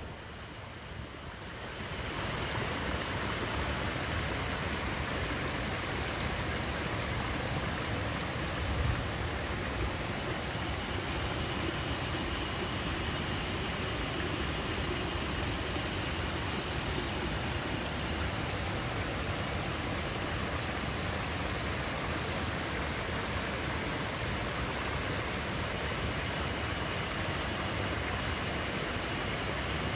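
Steady rushing of a mountain stream, an even noise that swells in over the first couple of seconds and then holds, with a faint thin high tone at times.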